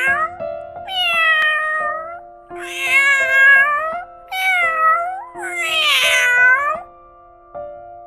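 Domestic cat meowing: four drawn-out meows of about a second each, the first beginning just before a second in, with the tail of another at the very start. Background music with held notes runs underneath.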